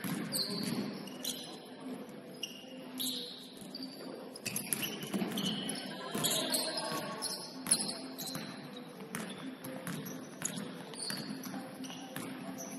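Basketball game play: sneakers squeaking on the court in many short high chirps, with the ball bouncing and sharp thuds scattered throughout.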